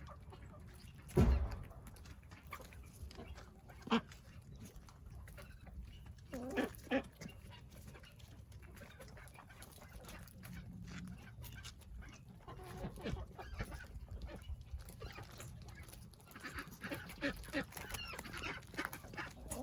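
Farmyard chickens and ducks calling now and then, the calls growing busier over the last several seconds. A single low thump sounds about a second in.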